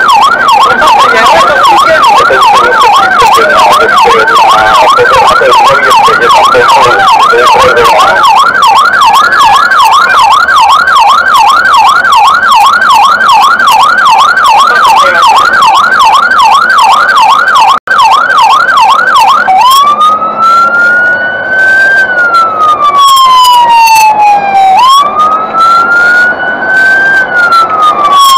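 Fire engine's siren on an emergency run, sounding a fast yelp of about three pitch sweeps a second. About two-thirds of the way through it switches to a slow wail that rises and falls roughly every five seconds.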